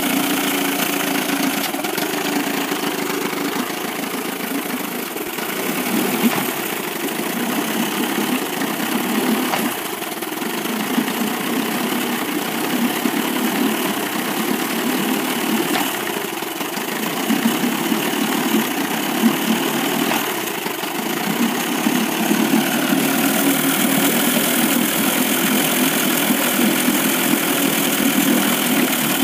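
1998 Evinrude 25 two-cylinder two-stroke outboard running at low rpm with an uneven miss, a little louder for the last few seconds. The miss comes from the lower cylinder, which the owner cannot trace: spark, compression and the carburettor check out.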